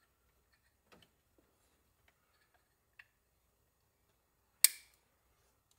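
A few faint scattered clicks and taps from small parts being handled, then one sharp, loud click about four and a half seconds in.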